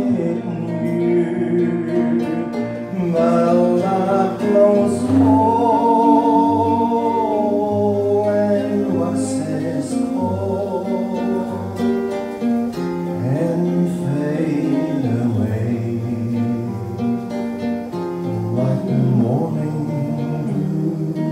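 Two acoustic guitars playing a song together, with a man singing over them.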